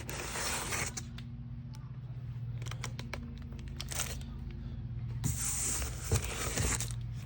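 Cardboard packaging of a pair of jack stands being opened and handled: two bursts of tearing and scraping, about a second in and again near the end, with scattered knocks between, over a steady low hum.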